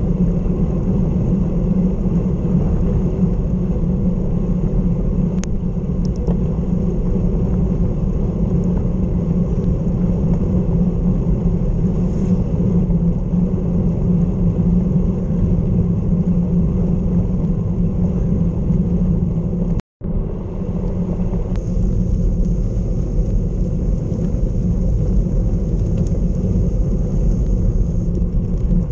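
Wind rushing over the microphone of a bike-mounted camera while cycling at about 30 km/h, with tyre hiss on wet tarmac, a steady low rumble. The sound cuts out for an instant about two-thirds of the way through.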